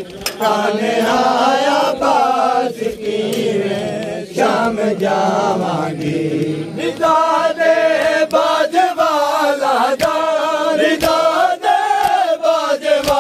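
A crowd of men chanting a Muharram noha together, loud and close. In the second half a sharp beat comes in about once a second under the chant.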